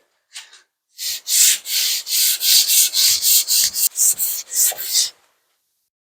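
Cast-iron sole of a Sargent 414 hand plane rubbed back and forth on 600-grit sandpaper to flatten it, about three quick rasping strokes a second for some four seconds before stopping. The sole is humped, so the paper is cutting mostly the middle and not the edges.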